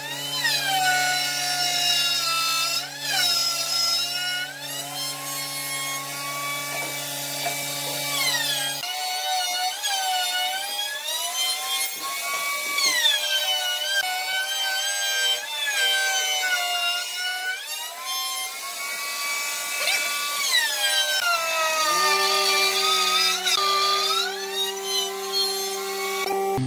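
Table-mounted wood router cutting a groove along a wooden beam as it is pushed across the bit. The motor whine runs loud throughout, its pitch dipping again and again as the bit bites into the wood and rising as it frees up.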